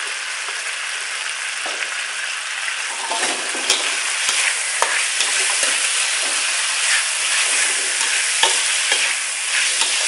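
Pork belly pieces sizzling in a metal wok while a metal spatula stirs them. From about three seconds in, the spatula scrapes and clinks against the pan.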